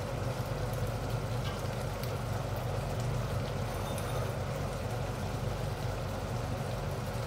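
Ginataang hipon (shrimp, squash and string beans in coconut milk) simmering in a wok on an induction cooktop: a steady bubbling hiss over a low hum.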